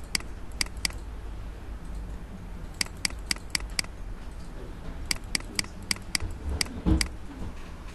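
Computer mouse button clicking in quick runs of about four clicks a second, with pauses between the runs, as a scroll arrow is clicked over and over. A single low thump about seven seconds in is the loudest sound.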